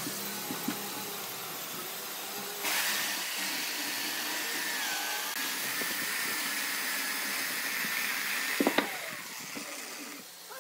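Corded electric chainsaw cutting through a tree-trunk section: a steady motor whine that starts about three seconds in and dips in pitch as the chain works through the wood. It stops shortly before the end, with a couple of sharp knocks just before it stops.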